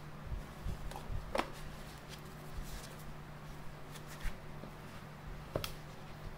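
Cloth-gloved hands handling and turning over a Yashicaflex C twin-lens reflex camera: soft rustling and light taps, with two sharper scrapes, one about a second and a half in and one near the end, over a steady low hum.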